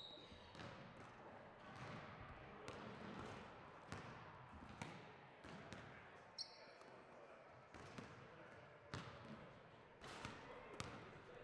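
Basketballs bouncing and knocking at irregular intervals in a gym, each hit ringing briefly in the hall, over a low murmur of voices. There is a short high squeak about six seconds in.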